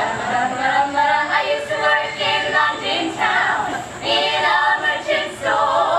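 Four women singing together in harmony, unaccompanied, with no instruments.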